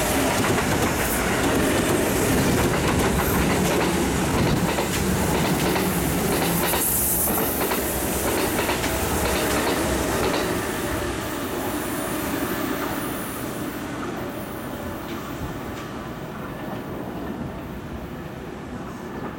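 Kintetsu electric commuter trains passing through a station without stopping, their wheels running over the rails in a steady rumble. It is loud for the first half, then fades gradually as the trains draw away down the line.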